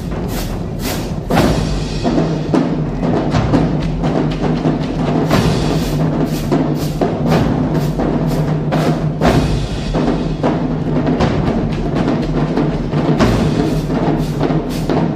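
Marching drumline playing together: pitched bass drums, snare drums, tenor drums and crash cymbals in a fast, steady rhythm, with repeated cymbal crashes.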